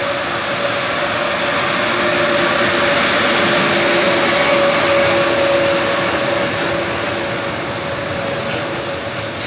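Freight train passing: an E.412 electric locomotive and a string of loaded hopper wagons rolling by on steel rails, a steady rumble with a constant hum underneath. It swells to its loudest around the middle as the wagons go by closest.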